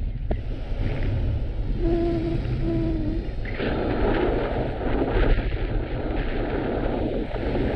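Strong wind buffeting the microphone: a loud, gusty rumble. Two short beeps sound about two seconds in.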